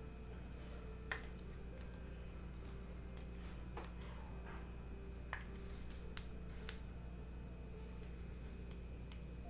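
Trading cards being handled at a table, with a few soft clicks and taps over a steady low hum and a high steady hiss.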